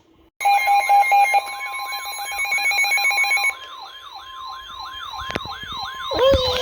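Emergency weather-alert tones sounding together, starting about half a second in: a steady high tone held throughout, a rapid pulsing beep for the first three seconds, and a siren-like falling whoop repeating two to three times a second.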